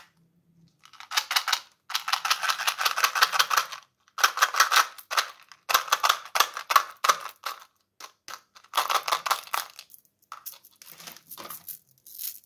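Tic Tac mints clattering out of their plastic box into a palm: a rapid rattle of many small hard clicks in several shaken bursts.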